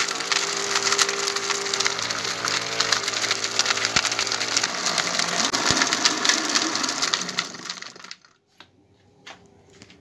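Homemade 12-volt blender driven by a car radiator-fan motor, grinding dry chicken bones: a dense rattling clatter of bone pieces against the plastic jar over a steady motor whine. It dies away about eight seconds in as the blender is switched off, leaving near quiet.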